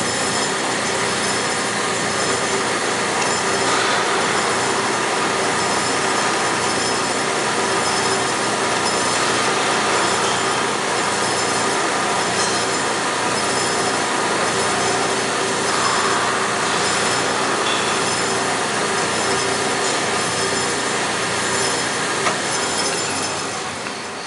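Grob 4V-18 vertical band saw running, its blade cutting through a white plastic block fed in by hand: a steady sawing noise over a constant whine from the machine. It eases off near the end as the block is drawn back off the blade.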